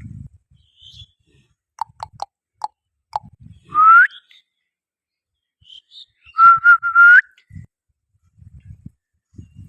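Whistling: a few short high chirps, then a loud rising whistle about four seconds in, then a few quick level notes that run into another rising whistle near seven seconds.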